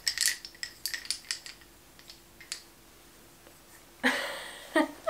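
Small hard clicks and clinks of a baby toy being handled and shaken: a quick cluster in the first second and a half, a few more later, and a short voice sound near the end.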